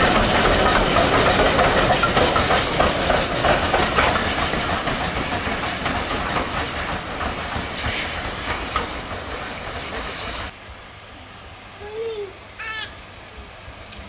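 Steam-hauled train going by: steam and exhaust noise with the clatter of wheels over rail joints, slowly fading. It cuts off suddenly about ten seconds in, leaving a much quieter background with a short chirp near the end.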